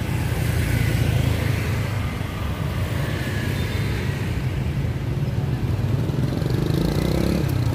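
Steady city street traffic heard from a moving pedal rickshaw: a continuous low rumble of passing motorbikes and cars.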